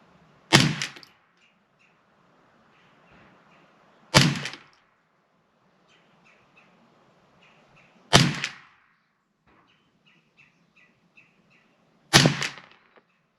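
Four shots from a Ruger 10/22 .22 LR rifle loaded with CCI Clean-22 target rounds, each a sharp crack with a short tail, fired about four seconds apart in a slow aimed string for a group.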